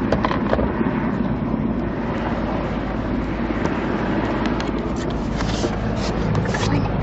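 Steady drone of a helicopter flying overhead, blended with city traffic noise, with a few brief knocks near the end.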